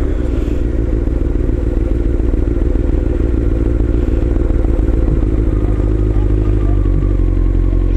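Honda CBR inline-four sport bike engine running at a steady speed while being ridden.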